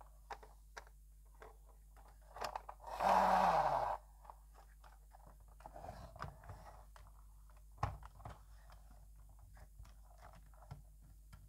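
Plastic toy fire truck being handled: scattered clicks and knocks of plastic parts as it is moved and its ladder boom is lifted. About three seconds in there is a louder rushing noise lasting about a second, with a low tone falling under it.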